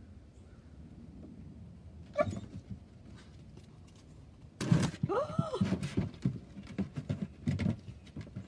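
Pit bull puppy jumping off and back onto a raised plastic dog cot, its paws knocking on the cot, with a short cry about two seconds in and a louder rising-and-falling cry around five seconds.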